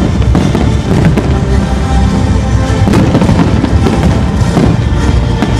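Fireworks display: shells bursting in a dense run of bangs and crackles, with loud music playing over it.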